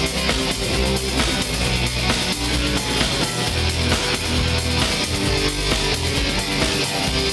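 Live rock band playing an instrumental passage: distorted electric guitars, bass and a drum kit keeping a steady beat, with no vocals.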